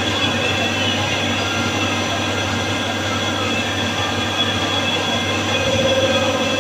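Wintec TC15 CNC lathe running: a steady machine hum with several constant whining tones, and a stronger whine that comes in near the end.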